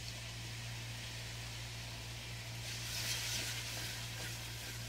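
Masala of fried onion, spices and yogurt sizzling in hot oil in a cooking pot, getting brighter for about a second near the middle.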